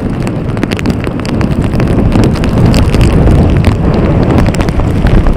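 Hurricane wind buffeting the microphone in a loud, steady rumble over breaking surf, with rain spattering the camera in many short ticks.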